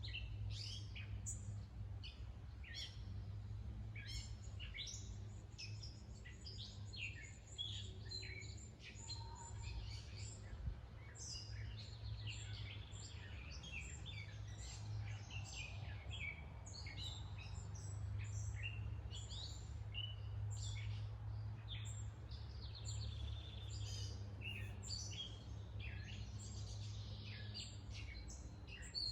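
Wild songbirds chirping and calling outdoors, many short overlapping notes through the whole stretch, over a steady low hum.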